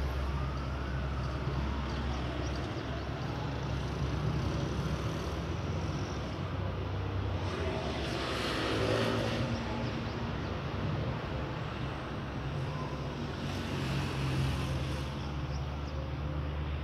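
Street traffic noise: a steady low rumble with vehicles passing. At the start a motorbike engine rises and falls in pitch as it rides past. The noise swells twice more, in the middle and near the end, as other vehicles go by.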